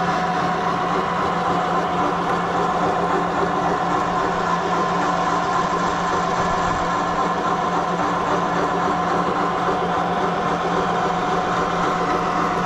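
Vertical milling machine running steadily while its end mill cuts a 14 mm keyway into a steel shaft: a constant mechanical whine and hum with no change in pace.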